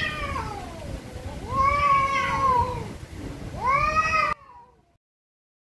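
Cats yowling at each other in an angry standoff: a string of long, wavering yowls that rise and fall in pitch, the threat calls that come before a cat fight. The last yowl cuts off suddenly a little past four seconds in.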